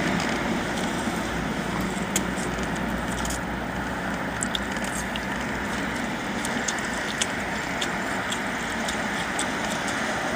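Steady running hum inside a car's cabin, with a few faint small ticks and crinkles scattered through it.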